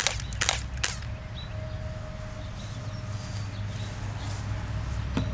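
Three quick shots from a Smith & Wesson M&P 40 CO2-powered, non-blowback airsoft pistol in semi-automatic fire, about two a second, all in the first second. Then a steady low hum, with a single click near the end.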